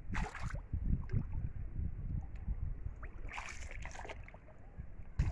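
A few short splashes and swishes in shallow, weedy pond water as a stick is worked among the plants, over a low rumble of wind on the microphone.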